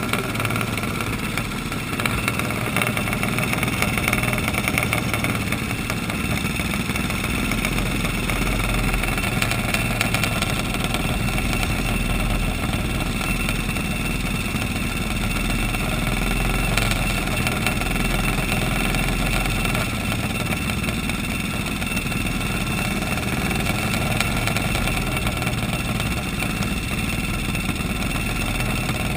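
Small single-cylinder flathead racing kart engines idling steadily, several at once, with no revving.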